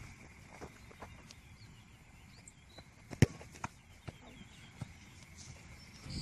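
A soccer ball kicked once, a sharp thud about three seconds in, with a few fainter taps around it over a faint steady high tone.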